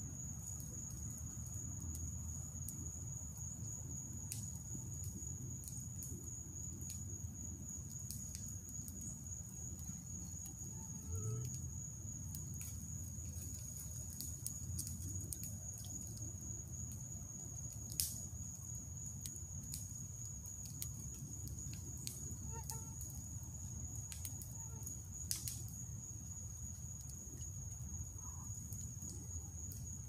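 Campfire crackling with scattered sharp pops, two of them louder about eighteen and twenty-five seconds in, over a steady high-pitched drone of night insects and a low steady rumble.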